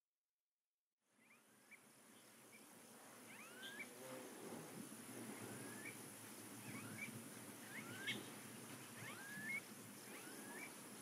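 Nature ambience fading in after a second of silence: short rising whistled animal calls repeat about once a second over a steady high-pitched insect drone. It is faint throughout.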